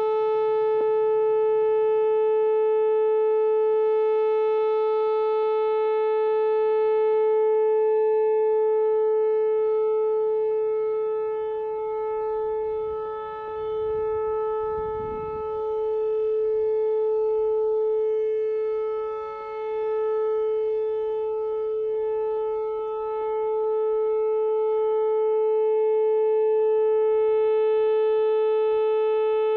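Whelen rotating outdoor tornado warning siren sounding one steady, held pitch during its weekly test. Its loudness dips and returns a few times midway as the rotating horn turns away and back. A brief low rumble is heard about fourteen seconds in.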